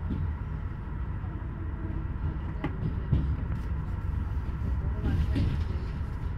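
Passenger train running along the line: a steady low rumble of wheels on track, with a faint steady hum and a sharp click a little under three seconds in.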